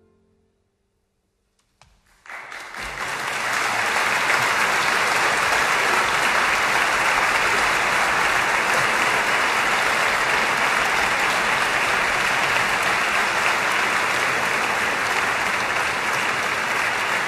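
The orchestra's final chord dies away into a brief silence, then concert-hall audience applause breaks out about two seconds in and carries on steadily.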